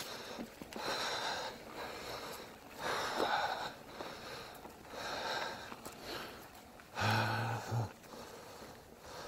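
A rider's heavy breathing close to the microphone, a loud breath about every two seconds; near the end one breath carries a short low hum.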